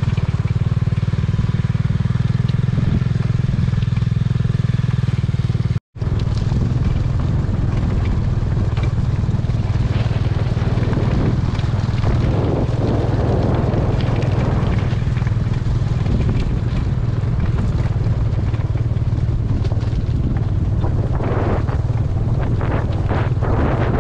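Motorcycle engine running steadily under way, with wind on the microphone; the sound drops out for a split second about six seconds in.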